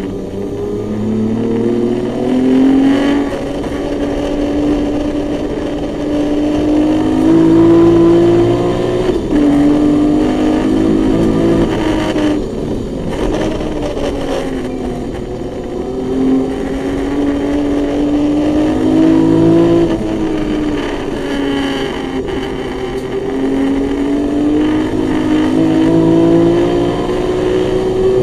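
BMW E21's naturally aspirated 2.7-litre M20 straight-six race engine, heard from inside the cabin, at full throttle on a circuit lap. The pitch climbs again and again and falls back sharply at gear changes and lifts for corners.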